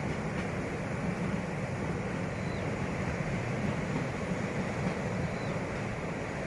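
Steady low rumble of a train running on the rails, heard from on board, mixed with wind rushing past the microphone.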